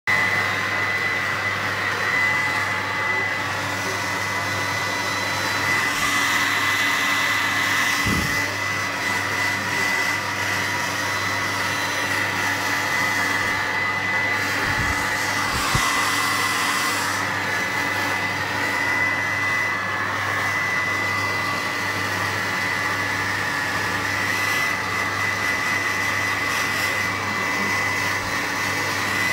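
Hairdryer blowing steadily, a constant rushing of air with a high steady whine.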